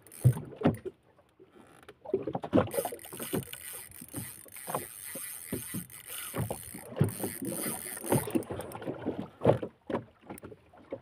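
Rod, reel and small boat working during a fight with a big tuna: irregular knocks and creaks as the rod is pumped, with a high steady whir for several seconds in the middle.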